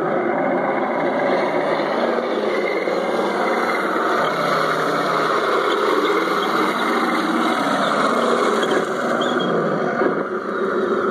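Radio-controlled Leopard 1 model tanks driving, a steady mechanical running noise from their drive and tracks that grows stronger as the lead tank comes close, with a brief dip near the end.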